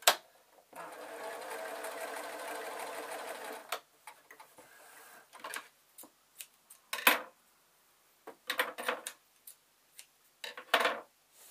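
Electric sewing machine running steadily for about three seconds as it stitches a seam, after a sharp click at the start. It is followed by several short clicks and knocks from handling.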